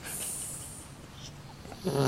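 Small shar-pei dog snoring in its sleep: a soft hiss of breath at the start, then a quieter pause, and the next loud, low snore begins just before the end.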